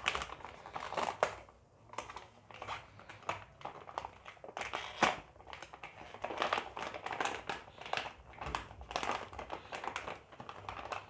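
Clear plastic packaging of a phone case crinkling and crackling as it is pulled and peeled open by hand, in irregular bursts with one louder crack about halfway through.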